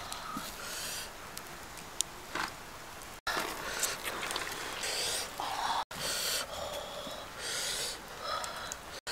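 Hands scraping and handling a whole raw fish inside a pot: scratchy strokes and small clicks, with the sound cutting out briefly twice.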